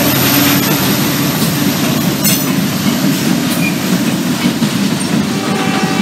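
Freight train's diesel locomotives, among them an RJ Corman GP7u, passing close by: engines running and steel wheels rolling on the rail, a loud, steady rumble and rattle.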